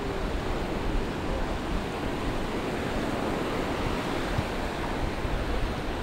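Small Mediterranean waves washing onto a sandy beach in a steady rush of surf, with wind buffeting the microphone.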